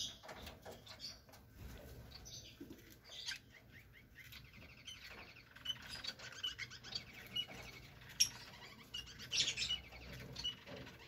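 Lovebirds, Fischer's lovebirds, giving short high chirps at irregular intervals, with a few raspy chattering stretches and small clicks in between.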